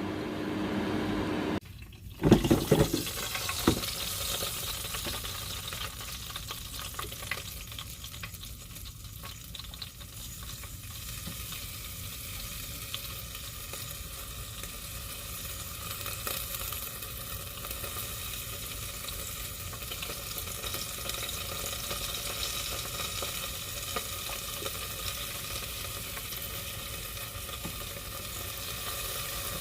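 Air fryer running with pork ribs sizzling inside: a steady fan whir and crackle. A few knocks come about two to four seconds in.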